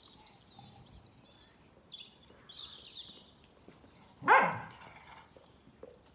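A bird singing in short, high chirping phrases for the first few seconds, then a dog barks once, loudly, about four seconds in, while two dogs play-fight.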